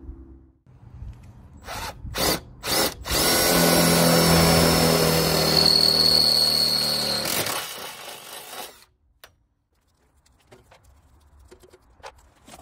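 Cordless drill boring a 5/16-inch hole in a pickup's rear bumper. It starts with three quick trigger blips, then runs steadily for about four seconds, with a high whine coming up partway through, and winds down about eight seconds in.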